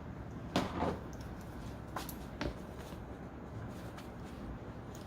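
Razor blade cutting through a layered fabric hat on a cutting board: a few short scraping strokes, about half a second in and again around two seconds in, over a steady low hum.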